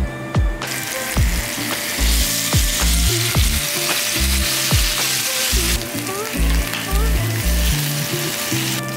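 Raw marinated pork tocino slices sizzling as they are laid onto a hot ribbed grill pan, a dense hiss that starts about half a second in and cuts off near the end. Background music with a steady beat plays underneath.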